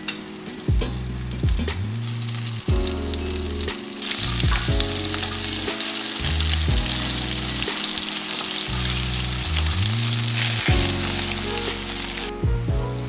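Kabab koobideh patties sizzling as they fry in oil in a nonstick skillet, with a wooden spatula scraping and turning them; the sizzle starts about four seconds in and cuts off suddenly near the end. Before it, a few clicks of metal tongs on tomatoes roasting over a gas burner, over background music.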